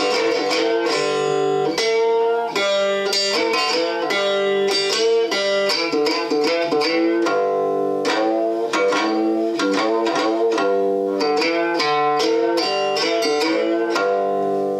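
Resonator guitar played slide-style in an instrumental passage: a steady run of picked notes, some gliding or bending in pitch under the slide.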